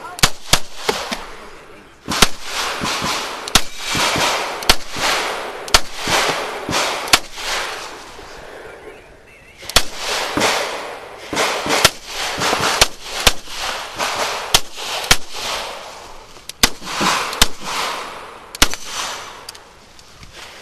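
A CZ Shadow 2 9mm pistol firing fast strings of shots, often in quick pairs, with two brief pauses between strings, one about two seconds in and a longer one near the middle.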